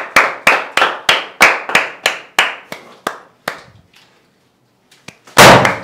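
One person clapping steadily, about three claps a second, fading out after about three and a half seconds. Near the end comes a single loud burst: a confetti popper going off.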